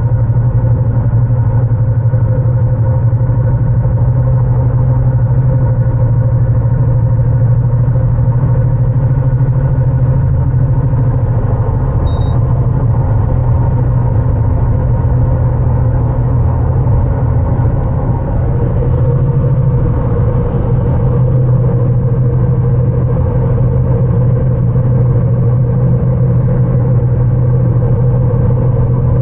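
Car cabin noise at highway speed: engine and road noise form a loud, steady low drone.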